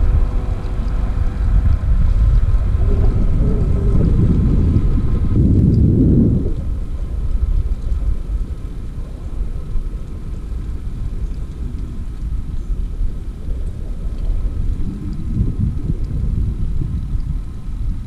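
Wind buffeting the microphone of a camera riding on a moving bicycle: a steady low rumble that is louder for the first six seconds or so, then eases somewhat.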